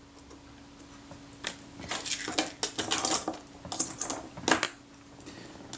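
Light clicks and clinks of small metal camera parts and tools being handled, irregular taps for about three seconds from a second and a half in, over a faint steady hum.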